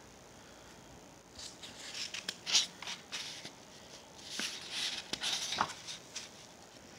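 Pages of a hardcover picture book being turned and smoothed flat by hand: papery rustles and swishes in two spells, starting about a second and a half in and again around four seconds in.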